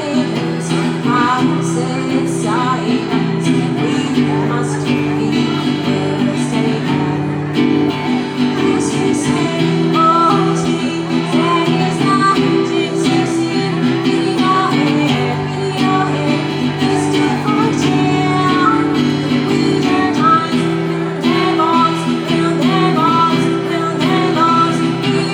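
Acoustic guitar strummed in steady chords with a voice singing a song over it.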